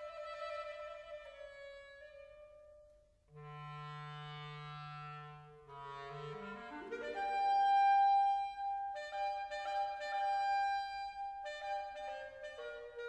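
Background instrumental music led by a woodwind melody, with a brief dip about three seconds in and a rising run of notes after about six seconds.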